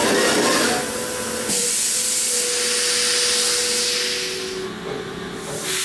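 Mazak FJV gantry-style vertical machining center working inside its enclosure: a loud hiss comes on about a second and a half in and fades after about three seconds, and a second short hiss comes near the end, over a faint steady whine.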